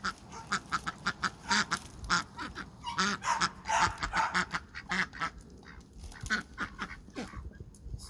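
Domestic ducks quacking in quick, short calls, several a second, thinning out in the last couple of seconds.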